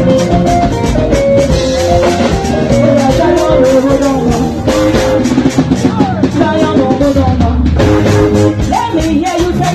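Up-tempo gospel praise music: drums and percussion keep a fast, steady beat under melodic instrument lines.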